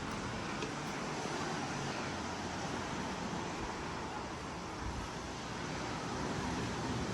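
Steady rushing outdoor noise of wind on the microphone and distant ocean surf.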